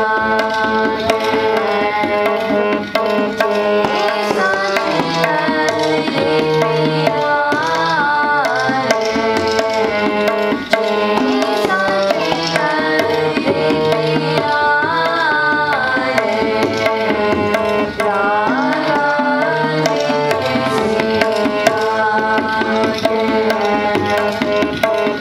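Sikh kirtan: harmonium playing a sustained reedy melody over steady tabla strokes, with girls' voices singing along.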